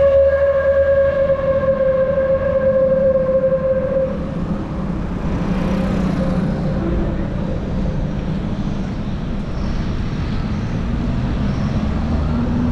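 Street traffic and road noise on a wet road heard from a moving bicycle, a steady low rumble throughout. A held droning tone slowly falls in pitch and fades out about four seconds in.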